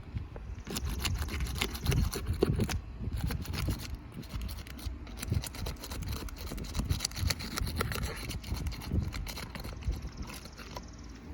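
Irregular scraping, rubbing and knocking of hand work on a roof shingle being removed and replaced.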